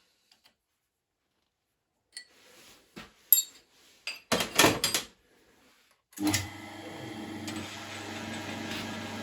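A few metallic clicks and knocks of tool handling, then about six seconds in the 9-inch South Bend lathe starts up and runs steadily with a low hum.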